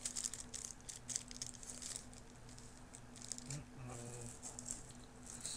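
Small clear plastic bag of model airplane parts rustling and crinkling as it is turned over in the hands, in light scattered bursts, busiest in the first two seconds.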